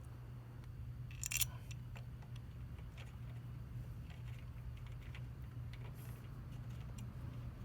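Small metal clinks and faint ticks of a countersunk bolt and tool being handled and threaded by hand into a motorcycle rear-set bracket, with one sharper clink just over a second in, over a steady low hum.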